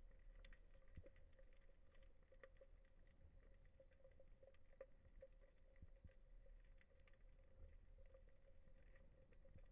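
Near silence: faint underwater ambience, a low rumble with a steady faint hum and scattered soft clicks.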